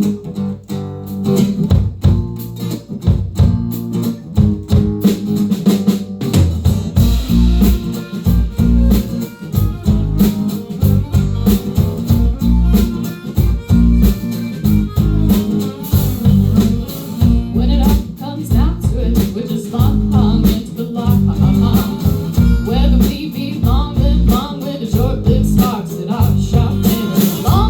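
Live band playing an instrumental passage on guitar, bass and drum kit, with steady drum hits throughout.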